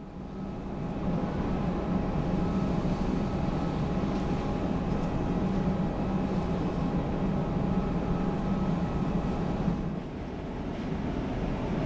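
Steady airport apron noise of a jet airliner at the gate: a low hum with steady high whining tones over it. It swells in over the first second and shifts slightly about ten seconds in.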